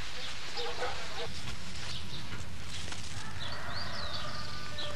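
Farmyard ambience over steady background noise: a few short clucks from poultry in the first second or so, then small birds chirping with quick high calls.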